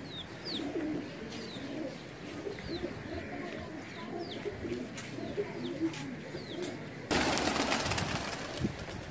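A flock of domestic pigeons cooing, with short high chirps over it. About seven seconds in comes a sudden loud rush of wing flapping as the flock takes off, lasting about two seconds.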